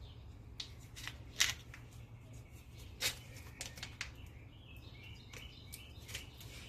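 Light clicks and rubbing from hands handling a new rear brake pad and its parts while greasing it, with two sharper clicks about one and a half and three seconds in.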